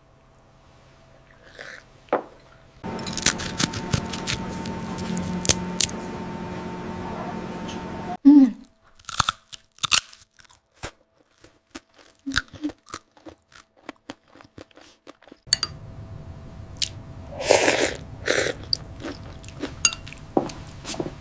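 People eating a meal: chewing and crunching bites, with many short sharp clicks and a few brief murmurs.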